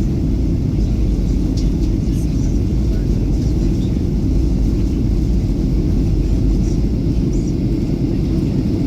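Steady low rumble of cabin noise inside a Boeing 737-800 on descent: the CFM56-7B engines and the airflow past the fuselage, with a faint hiss over the top.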